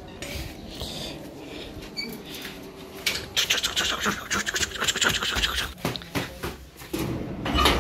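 A person walking up an indoor staircase: irregular footsteps with scratchy rustling from the phone being handled. The rustling is densest in the middle of the climb.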